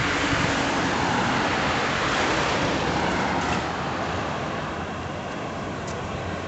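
Road traffic passing close by: a pickup truck and a van drive past, their tyre and engine noise swelling and then easing off after about four seconds.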